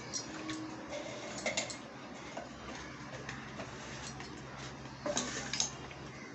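Raw rohu fish steaks being turned and rubbed by hand in a steel bowl to mix in turmeric: scattered light knocks and clicks of fish and fingers against the steel, with small clusters about a second and a half in and again about five seconds in. A faint steady hum runs underneath.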